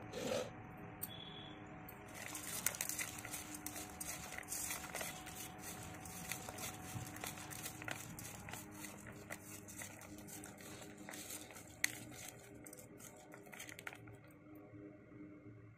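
Bare hand squeezing and mixing chopped raw onions, green chillies and garlic in a stainless steel bowl: a dense run of wet crackling and squishing with light taps on the bowl, starting about two seconds in and easing off near the end.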